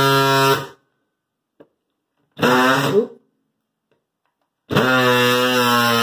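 DeWalt cordless oscillating multi-tool buzzing as its blade cuts into the floor, a sound likened to a bunch of angry bees. It stops under a second in, gives one short burst in the middle, then starts again near the end and runs steadily.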